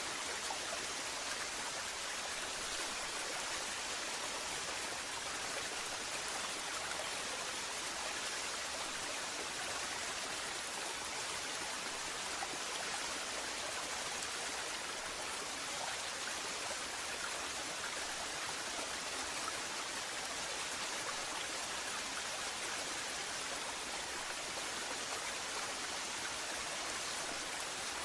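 Waterfall: a steady, even rush of falling water that never changes.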